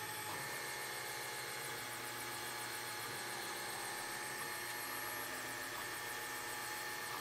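Weistek IdeaWerk Plus 3D printer running a print: a steady hum and whine from its motors as the print head and build platform move, with the tones shifting slightly shortly after the start.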